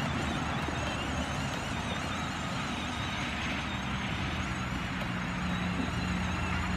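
Electric ride-on toy car's motors running as it drives over grass and dry leaves, with a steady low hum setting in a little past halfway and a faint wavering high tone above it throughout.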